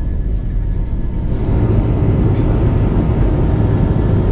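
Jet airliner engines at takeoff power heard from inside the cabin: a loud, steady low rumble with a faint steady whine above it, growing fuller about a second and a half in.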